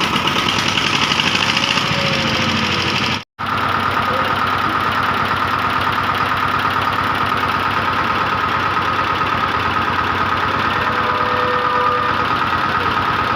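Freshly rebuilt single-cylinder water-cooled diesel engine of a VST Shakti 130 DI power tiller running steadily with a rapid, even knocking beat. The sound cuts out for a split second about three seconds in, then carries on unchanged.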